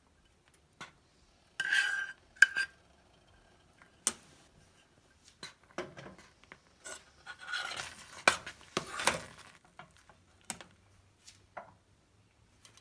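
A spoon clinking and scraping against a cooking pan while a thick semolina mixture is stirred. Scattered clinks, two louder ones about two seconds in, and a busier run of scraping and clatter around seven to nine seconds in.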